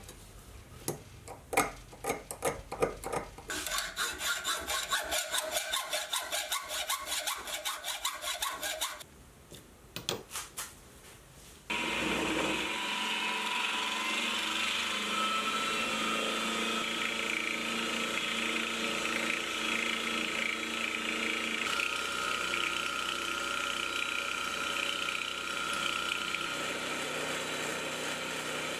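A few light taps, then a quick run of rhythmic scraping hand strokes. About twelve seconds in, a Sieg X2.7L mini mill starts and runs steadily with a whine as its end mill cuts the side of a metal bar down to size.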